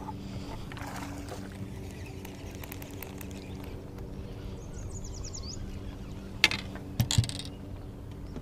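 Bow-mounted electric trolling motor humming steadily, with a few sharp knocks about six and a half and seven seconds in.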